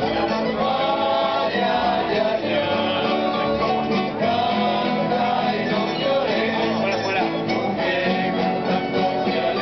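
A Spanish tuna student band playing: several acoustic guitars and bandurrias strummed and plucked together, with voices singing along.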